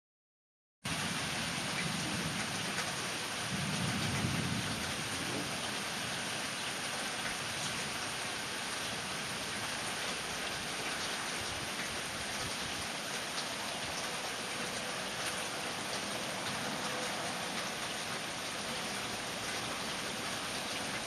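Steady heavy rain in a thunderstorm, cutting in abruptly about a second in, with low rumbles of thunder about two and four seconds in.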